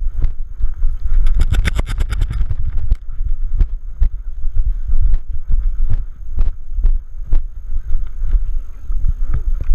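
Audio from a GoPro mounted on a running Bernese Mountain Dog's back: a heavy low rumble of wind and the mount jostling, with knocks about once a second as the dog moves. A quick rattle of sharp clicks comes about a second and a half in.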